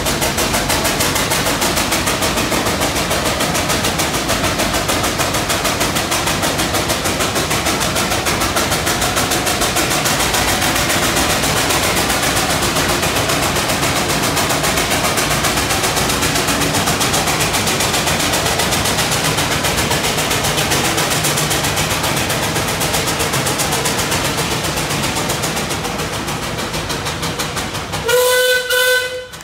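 Steam traction engine working hard under load as it pulls a weighted sled, its exhaust chuffing in a rapid, steady beat. Near the end the chuffing eases off and a short blast of its steam whistle sounds.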